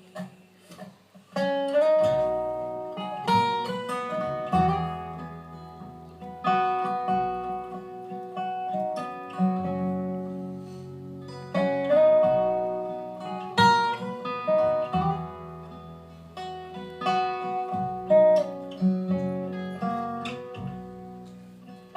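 Acoustic guitar picking and strumming an instrumental introduction, with low bass notes sustained underneath.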